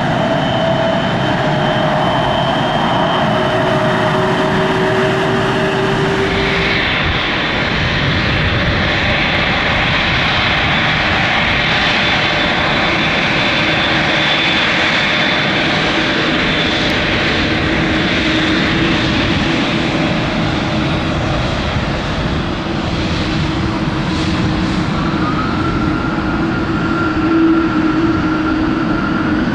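Boeing 787 jet engines running at low power: a steady rumble with high whining tones. About seven seconds in the sound changes to a second 787 taxiing close by, and near the end a whine rises in pitch.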